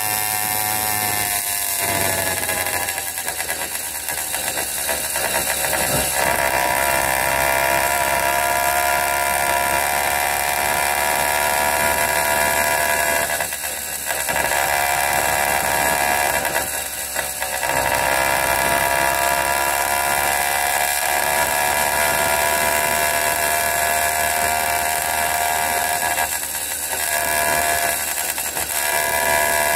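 80cc Wildcat PK80 two-stroke bicycle engine running at riding speed with a high buzz, its pitch falling over the first few seconds and then holding steady, with three brief dips in level.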